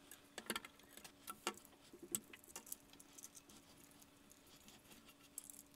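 Faint, irregular small clicks and ticks of thin steel cable and 3D-printed plastic parts being handled, over a faint steady hum.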